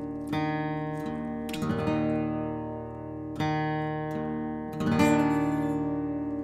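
Background music: acoustic guitar strumming chords, four strums that each ring out and fade before the next.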